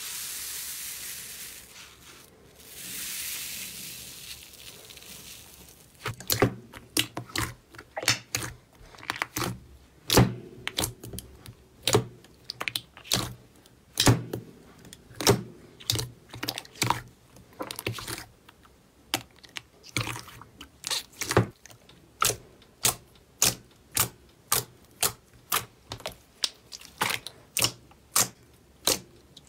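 Slime being worked by hand: a rustling hiss for the first few seconds, then a steady run of sharp pops or clicks, a little more than one a second.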